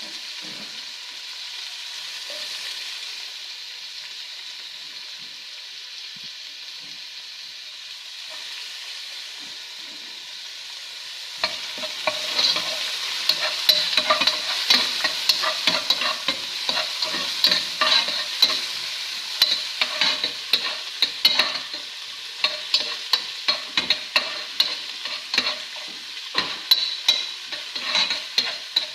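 Onions sizzling in hot oil in a pan, a steady hiss. About eleven seconds in, a spatula starts scraping and clacking against the pan over and over as they are stirred.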